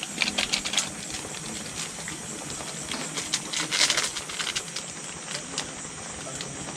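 A pot of fish and vegetable soup boiling with a steady hiss, while a plastic seasoning sachet crinkles and clicks in the hands as it is emptied into the pot.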